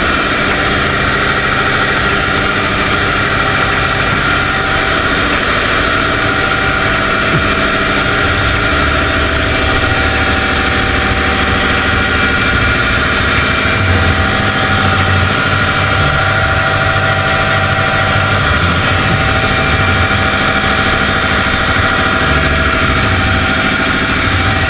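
Electric or air-powered sanding machine running steadily, sanding the primer coat on a car's body panel, with a constant motor whine over a low rumble.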